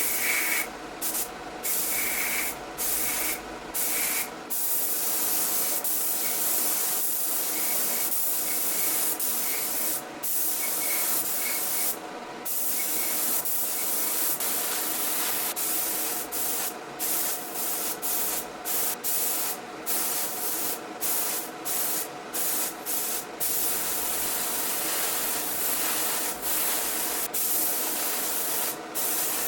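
Spray gun hissing as Cerakote coating is sprayed on, in long sprays broken by many short pauses.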